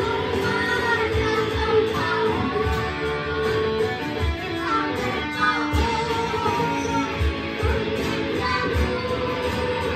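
Children's home band playing a mostly instrumental passage: electric guitar through a multi-effects unit, a strummed acoustic guitar and a Roland keyboard.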